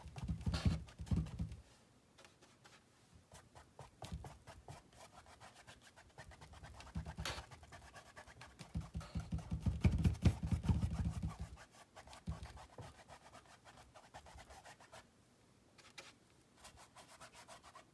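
Flat paintbrush scratching across a stretched canvas while blending wet paint, in quick back-and-forth strokes. It comes in two spells, a short one at the start and a longer, louder one around the middle, with fainter strokes between.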